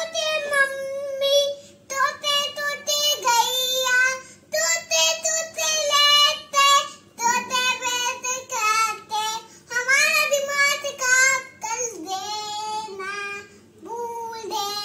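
A young child singing an aarti, a Hindu devotional hymn, in short phrases with held, wavering notes.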